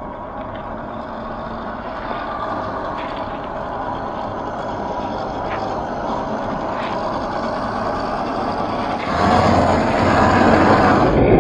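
1/10-scale RC crawler with a 540 45T brushed motor driving over gravel, its motor and gears whining under the crunch of the tyres, growing steadily louder as it comes closer. About nine seconds in it turns louder and rougher as the tyres churn through wet mud.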